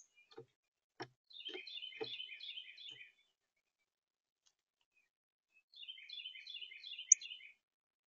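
A songbird singing two phrases of rapid, repeated chirping notes, the second about three seconds after the first. Under the first phrase there are a few light knocks from a bird moving on a plastic bird feeder, and there is a sharp click at the start and another near the end.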